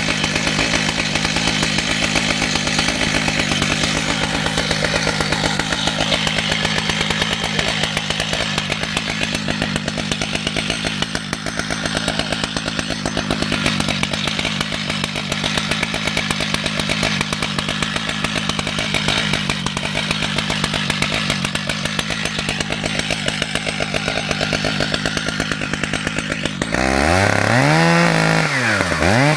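Two-stroke chainsaw running steadily under load, ripping lengthwise through a red oak log in a chainsaw mill. Near the end the engine gets louder and its pitch swings sharply down and back up.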